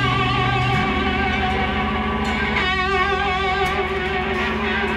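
A rock band playing live: electric guitars holding sustained notes over a steady bass line, with a wavering, bent note about three seconds in.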